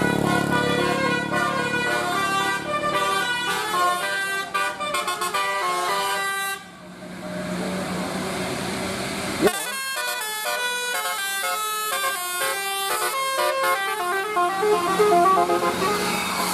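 Telolet basuri bus horn, a multi-tone air horn, playing a quick melody of stepped notes. It stops about six and a half seconds in and starts another tune about three seconds later, with road noise in the pause.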